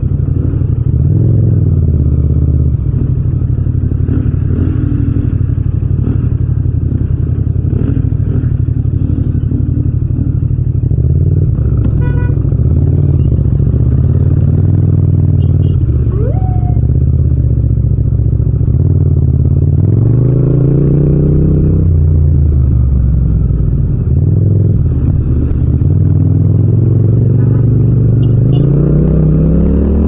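Yamaha MT-07's parallel-twin engine running at low revs in slow traffic, rising in pitch twice as the bike accelerates: about two-thirds of the way in and again near the end.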